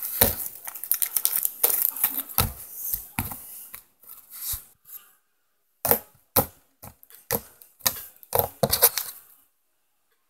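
Slime being squeezed and stretched right at the microphone: irregular wet crackling and popping clicks, dense for the first few seconds, then in scattered clusters after a short lull.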